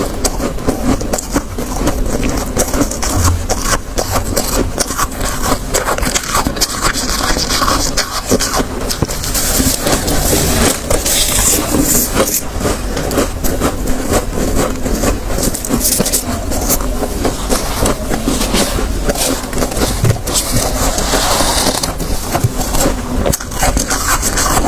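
Close-miked crunching of soft freezer frost, squeezed by hand and chewed by mouthfuls, a continuous crackle of many small crunches.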